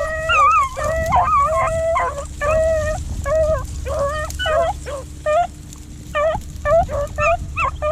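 Rabbit beagles baying on a rabbit's track: drawn-out howls for the first couple of seconds, then a run of short, choppy bawls about two or three a second.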